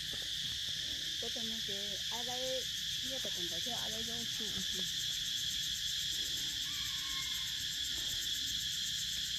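Insects droning steadily in a high, even chorus. A faint distant voice rises over it for a few seconds about a second in.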